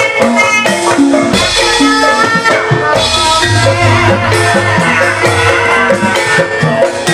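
Live Javanese gamelan ensemble playing: bronze pot gongs and metallophones carry a steady melody over drum strokes, with a deep gong stroke about a second and a half in.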